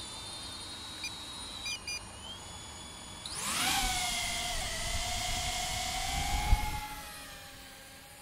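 DJI Avata 2 FPV drone's motors spinning with a thin high whine, then throttling up about three seconds in to a much louder propeller whine as it lifts off, the pitch climbing then settling. The sound fades over the last second or so as the drone climbs away.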